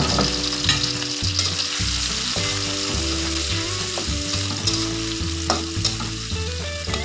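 Sliced sausage sizzling in hot oil with garlic and bird's-eye chillies in a wok, with the hiss of frying running throughout. A metal spatula stirs the pieces, giving a few short clicks against the wok.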